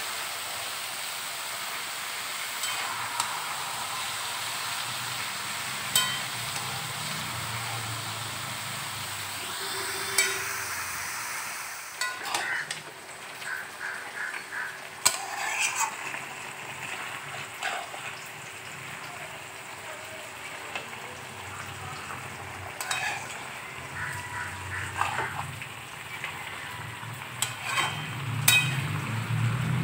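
Cabbage, potatoes and fish head sizzling as they fry in a metal wok while a metal spatula stirs them, scraping and knocking against the pan. The sizzle is steady for about the first twelve seconds, then softer, with many spatula clicks and scrapes.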